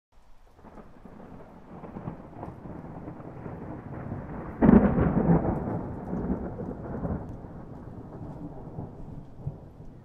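A thunderclap. A low rumble builds, then a sharp, loud crack comes about halfway through, and the thunder rolls on and slowly fades.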